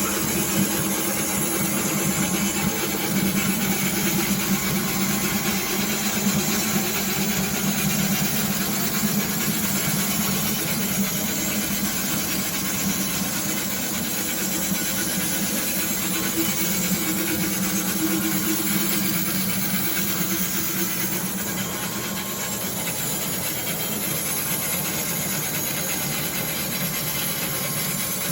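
Hauslhof HBB 650 band sawmill running steadily, its blade sawing through a log: a continuous hissing saw noise over a low motor hum.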